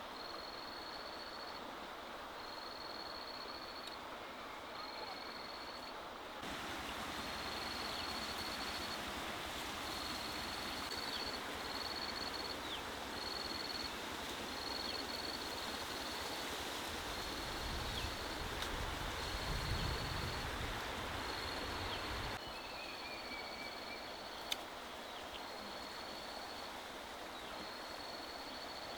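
Outdoor forest ambience: a steady rushing background with a high-pitched trill repeating in short bursts about once a second. A low rumble swells for a few seconds past the middle, and near the end there is a short falling whistle and a single sharp click.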